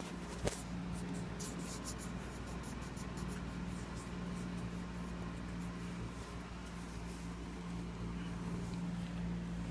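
Steady low background hum with a faint steady tone, a single sharp click about half a second in, and faint light ticking for a few seconds after.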